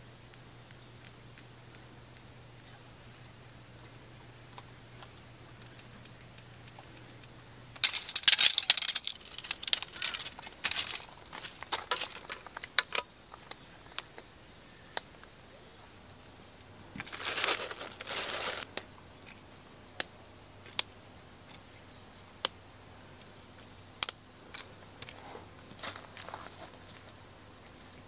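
Rustling and crinkling handling noise, in a few short bursts, with scattered sharp clicks and light knocks between them.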